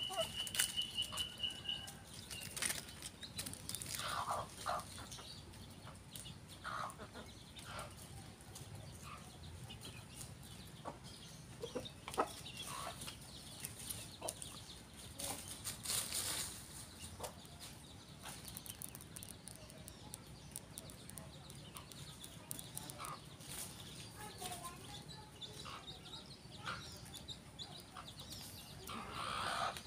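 Ayam kampung village chickens foraging: scattered short clucks from the rooster and hen, and the crackle and rustle of dry leaves as they scratch and peck.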